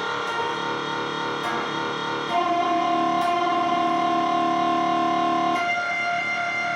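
Electric guitar played through an Electro-Harmonix Canyon delay pedal in its sample-and-hold (S/H) mode, the held notes modulated into an artificial cat-like purr. A louder note comes in a little over two seconds in, and the pitch changes again near the end.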